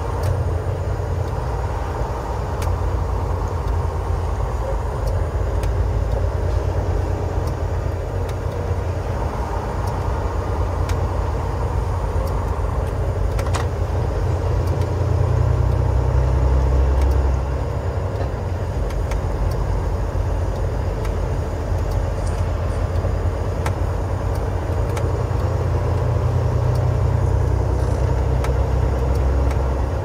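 Semi truck's engine and road noise from inside the cab: a steady low rumble. It grows louder for a couple of seconds about halfway through and again near the end.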